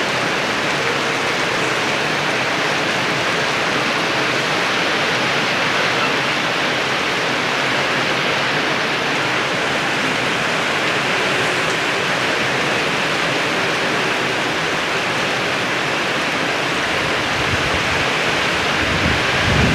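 Heavy rain falling as a loud, steady hiss, with a few low rumbling bumps near the end.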